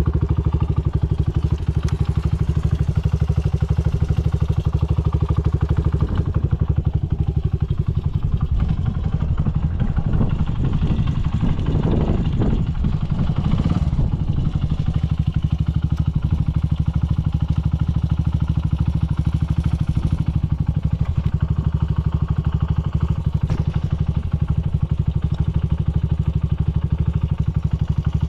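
Honda Ape 100 single-cylinder four-stroke engine idling steadily through a Yoshimura titanium exhaust, turning briefly fuller and rougher about ten seconds in before settling back. It runs with no abnormal noise.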